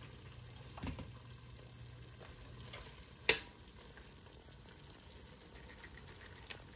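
Curry paste and coconut milk sizzling faintly in a stainless steel pot over low heat, with a sharp knock about three seconds in, like a metal spoon against the pot.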